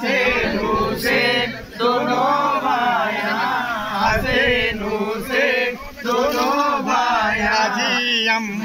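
Male voices chanting a Muharram devotional song in long, wavering melodic phrases, with short breaks between lines.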